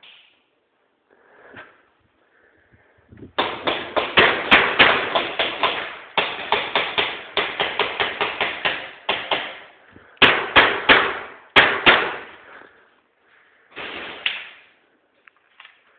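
Airsoft pistol fire, an FN Five-seveN among the guns, in a firefight: sharp cracks and BB impacts in dense runs of several a second from about three seconds in to about twelve, then a short burst again near the end.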